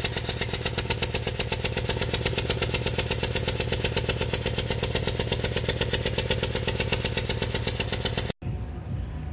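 Subaru boxer engine running with a spark plug blown apart in the head: a fast, even chuffing of about ten sharp puffs a second as compression escapes from the open plug hole. It cuts off sharply near the end.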